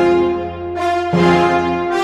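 Background instrumental music with sustained brass-like chords that change about every second.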